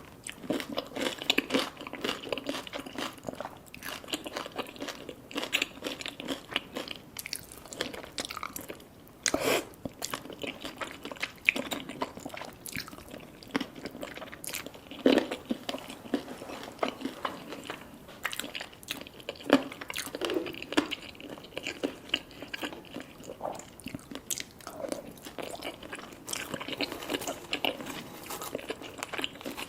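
Close-miked eating: crunchy fried food being bitten and chewed, with many irregular crackles and crunches.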